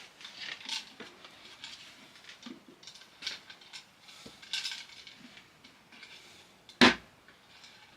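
Light metallic clinks and rattles of small hardware and hand tools being handled on a workbench, with one sharp knock about seven seconds in.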